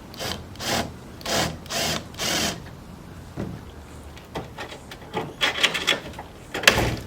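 Hand tools at work on a 40 Series Land Cruiser's body: five even rasping strokes, then a quick run of clicks and a single loud knock near the end.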